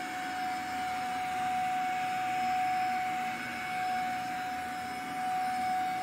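Electrolux STK13 Power Speed corded stick vacuum running steadily on a rug: a constant motor whine over the rush of suction.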